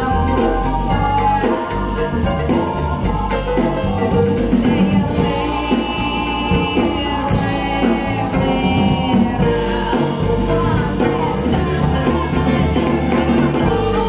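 A song with singing over drums, played back over a pair of KEF LS50 Black Edition bookshelf speakers.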